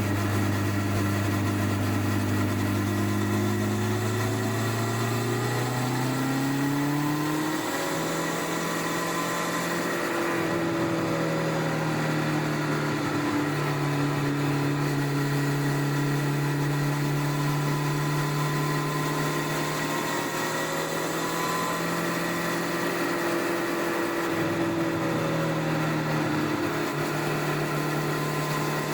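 Honda CBR1100XX Blackbird's stock inline-four engine under way. Its note climbs steadily for the first several seconds as the bike accelerates, then holds at a steady cruising pitch with a few slight dips as the throttle eases.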